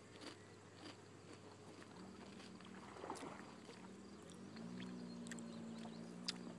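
Faint steady motor hum that sets in about two seconds in and steps up in pitch a couple of seconds later, with scattered light clicks.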